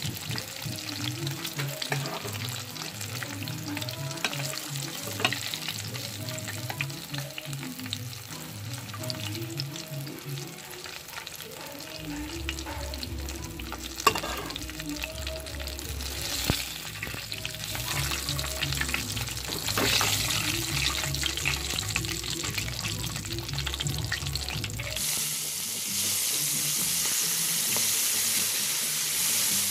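Chicken frying in hot oil in a pot, a steady sizzle with crackles. About 25 seconds in the sizzle turns louder and fuller, with a fresh batch of seasoned chicken pieces frying vigorously.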